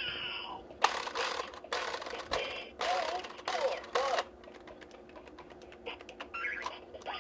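Bop It Extreme 2 electronic toy playing a run of short, noisy sound effects, four bursts of about half a second each with some warbling tones, during the first four seconds. Faint clicks follow in the second half.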